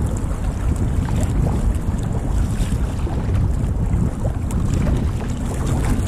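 Loud, steady wind rumble buffeting the microphone, over sea water sloshing around a sea kayak.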